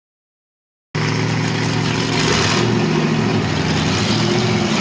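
Silence for about the first second, then an off-road 4x4's engine cuts in running steadily, with an even noisy hiss over it.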